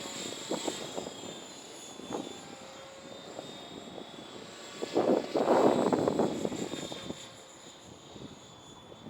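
Align T-Rex 700E 3G electric RC helicopter in flight: its 700MX brushless motor and rotor give a steady high whine. Gusts of wind buffet the microphone, heaviest about five to seven seconds in.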